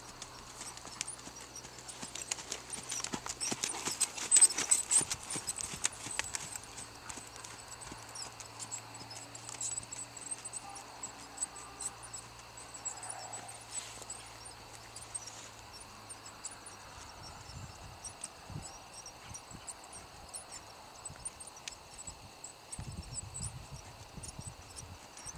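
Hoofbeats of a Percheron paint gelding trotting under a rider on a dirt arena, a steady run of soft thuds, loudest between about two and six seconds in.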